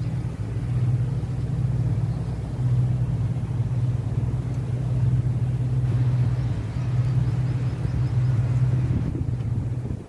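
Speedboat engine running at a steady pace, a continuous low drone heard from on board the boat, with some wash of water and wind around it.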